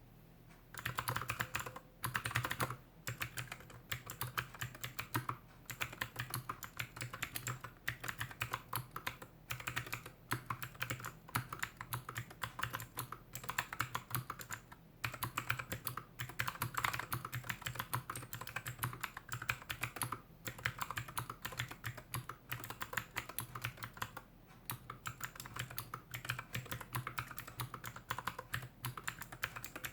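Slow typing on a GK61X keyboard fitted with clicky Gateron Milky Blue switches on a stainless steel plate in a plastic case, with DSA keycaps: a steady run of sharp clicks starting about a second in, broken by brief pauses.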